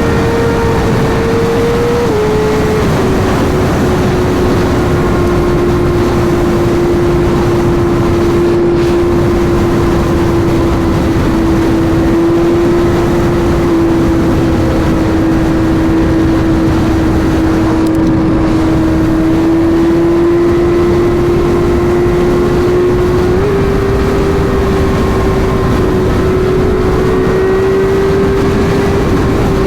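Sport bike's inline-four engine running at a steady highway cruise under wind rush, its pitch stepping down about two seconds in and stepping back up near the end with changes in throttle or gear.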